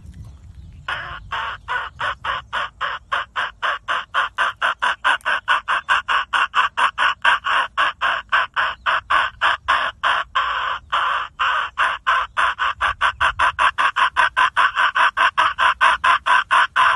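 A man imitating a female red junglefowl's mating call, made with the tongue against the teeth: a fast, even run of clucking notes, about five a second. It is the call a hen gives when she is ready to mate, to lure the cock. The notes begin about a second in and go on without a break.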